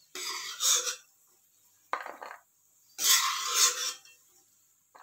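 Steel slotted spoon scraping a stainless steel kadhai as ghee-fried cashews are scooped out onto a plate: three rasping scrapes, the last and longest about three seconds in.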